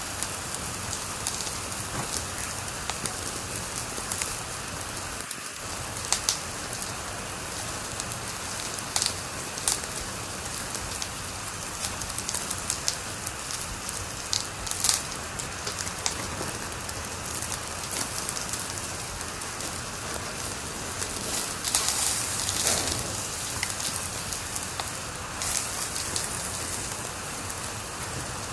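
Wood fire crackling in a fireplace: a steady hiss with irregular sharp pops and snaps, a louder flurry of pops about three quarters of the way through.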